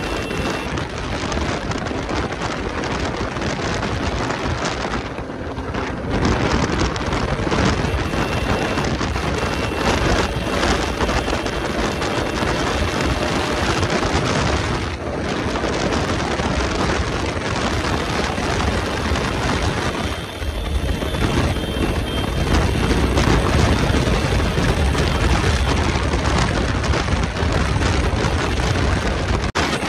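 Wind rushing over the microphone and the Bajaj Pulsar RS200's single-cylinder engine running at highway speed. It is a steady, loud noise that briefly drops away three times, about 5, 15 and 20 seconds in.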